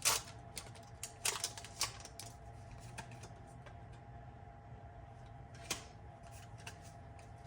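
A foil trading-card booster pack being torn open and its cards handled: a few sharp crinkles and clicks, at the start, twice about a second and a half in, and once near six seconds, over a faint steady hum.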